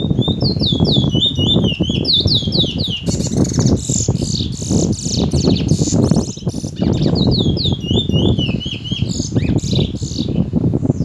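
Caged bullfinch singing its 'tee chor wheet' song: fast runs of short, high down-slurred whistled notes, with a buzzier stretch in the middle. A loud low rumble runs underneath.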